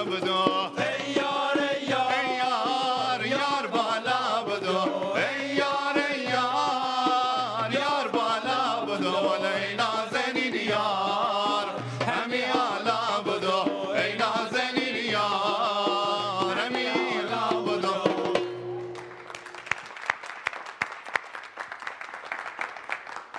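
Upbeat Iranian bandari dance music with singing and drums. It stops about 18 seconds in, and the studio audience applauds.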